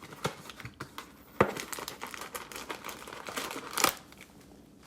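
Cellophane-wrapped trading card pack crinkling as it is handled, with short clicks and rustles, the loudest about a second and a half in and again near four seconds.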